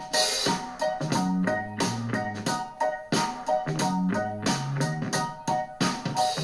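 Instrumental music with rhythmic keyboard or piano chords over a bass line, played through a small portable Bluetooth speaker.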